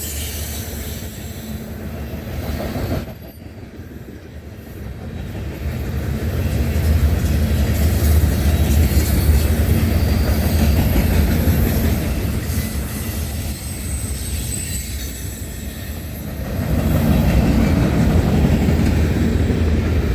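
Freight train rolling past at track speed: a steady rumble of wheels on rail with thin high wheel squeal over it. It dips briefly about three seconds in and grows louder again near the end.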